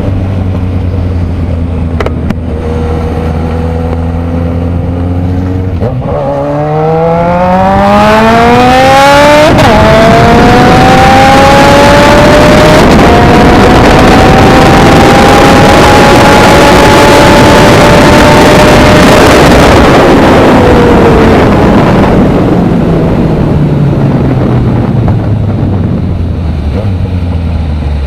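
Engine running steadily, then accelerating hard from about six seconds in, with a gear change near nine and a half seconds. It then holds at high revs, slowly climbing, in a top-speed pull in third gear, before the revs fall away over the last several seconds.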